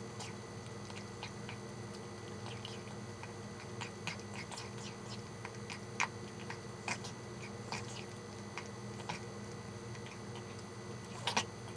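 A pet chewing and biting its food, with short irregular clicks and crunches scattered through, the loudest a quick pair near the end.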